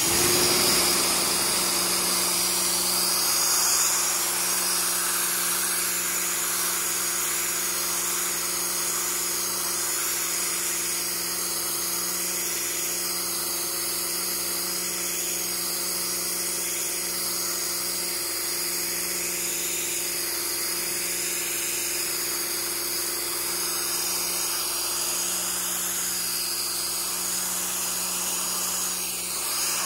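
Pressure washer running steadily, its wand blasting a high-pressure water jet onto a canoe's plastic hull: a continuous hiss of spray over a steady hum from the machine.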